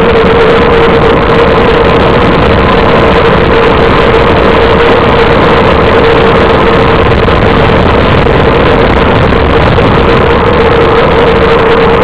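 Steady wind rush on the microphone of a camera riding on a bicycle descending a mountain road at speed, with a steady mid-pitched tone running through it.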